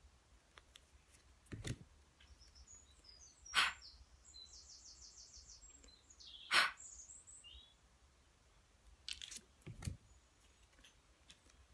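Quiet pause with faint birdsong: a few high chirps and a short, rapid trill about midway. Several soft clicks or knocks are heard on their own, around two, four, seven and ten seconds in.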